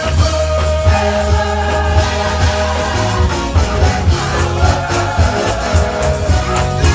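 Gospel choir singing with a church band, held sung notes over a pulsing bass line and steady drum beat.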